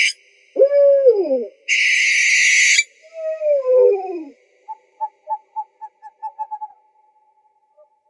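Owl calls: a descending, wavering call, then a harsh hissing screech lasting about a second, more descending calls, and from about halfway a quick run of short notes.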